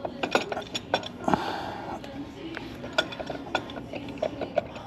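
Metal clutch parts of a Harley-Davidson big twin clinking and clicking as they are handled during reassembly, with a brief scrape about a second and a half in.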